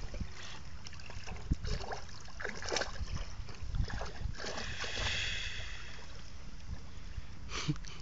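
Irregular water splashing and sloshing, over a steady low rumble of wind on the microphone.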